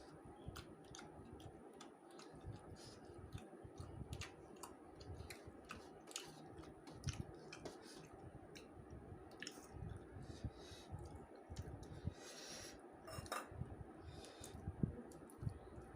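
Close mouth sounds of a person eating rice with fish curry: irregular wet clicks and smacks of chewing, a few every second, with a louder, rougher stretch about twelve and a half seconds in.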